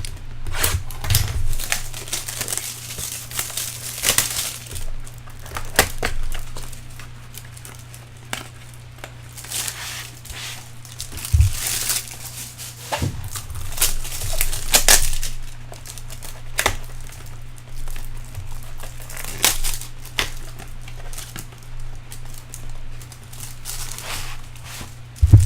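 Trading-card box and its plastic wrapping being opened by hand: crinkling and tearing in irregular bursts, with a few short handling knocks.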